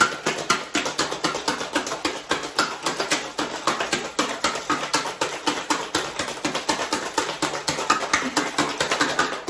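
Ice rattling hard inside a stainless steel cocktail shaker being shaken, in a fast, even rhythm of sharp clacks several times a second.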